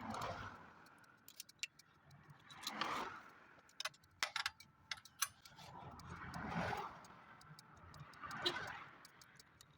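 Scattered metallic clicks and clinks of hand tools being handled on the motorcycle, with a few longer scraping swells; the engine is not running.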